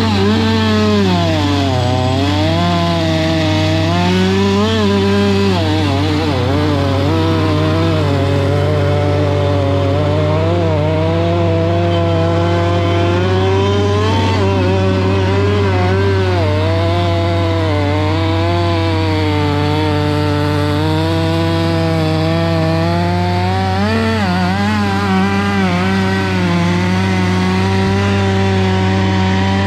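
Gas chainsaw cutting through a felled tree trunk, its pitch sagging and rising again and again as the chain bogs in the wood and frees up, over a steady low hum.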